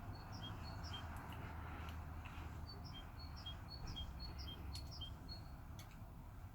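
A small bird chirping in a quick, regular pattern of short high notes repeated over and over, with a couple of faint clicks near the end and a low hum underneath.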